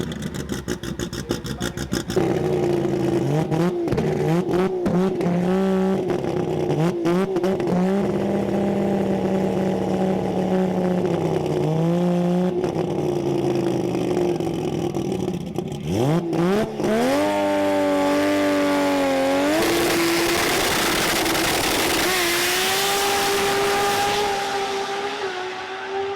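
Drag-racing Holden VL Commodore engine revving hard, its pitch stepping up and down, with a fast string of pops in the first couple of seconds and a sweep up from a low note about two-thirds through. A rushing noise builds near the end.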